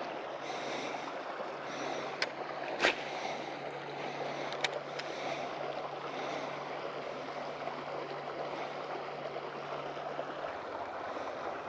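Spinning reel cranked steadily to retrieve a jig, a continuous close-up whirr with a few light clicks; the low hum under it stops near the end.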